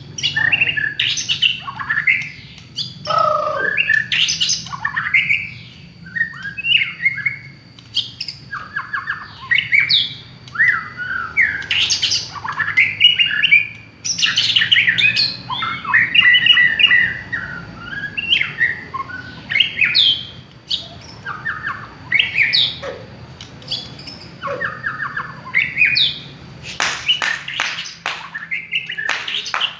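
White-rumped shama (murai batu) singing a long, varied song of rapid whistles, trills and sweeping notes, breaking into harsh, rattling chatter near the end. A thin steady high tone runs behind it for most of the time.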